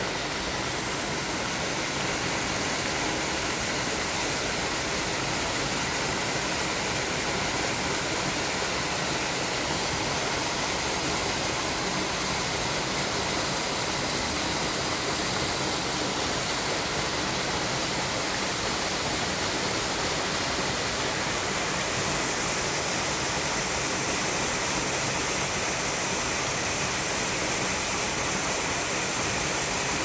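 Small waterfall on a mountain stream, water pouring over boulders into a pool with a steady rush. The hiss turns a little brighter in the last third.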